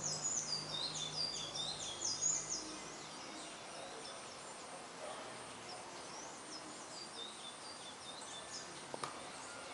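Birds calling and singing in forest, with rapid, high, falling chirps that are busiest in the first couple of seconds and then thin out. A low steady buzz of bees at the tree flowers sounds beneath them and stops a little after two seconds in.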